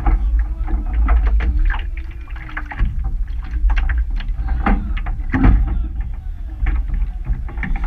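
Wind rumbling on the microphone, with scattered knocks and clatter from rowers' footsteps on the wooden dock and the rowing shell being handled as the crew climbs in.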